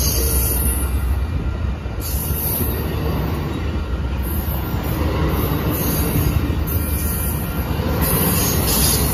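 Amtrak passenger cars rolling past at close range: a loud, steady rumble of steel wheels on the rails.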